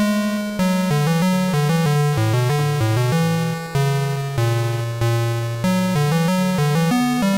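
Chiptune background music: bright synthesizer melody over a stepping bass line with a steady beat.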